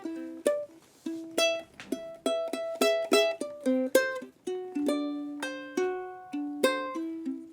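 Background music: a plucked ukulele-like string instrument strumming and picking chords, each note ringing and dying away.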